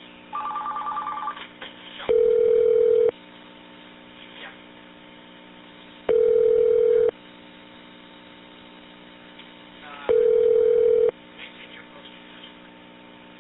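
Telephone line: a quick run of touch-tone dialing beeps, then a ringing tone that sounds for about a second every four seconds while the call waits to be answered.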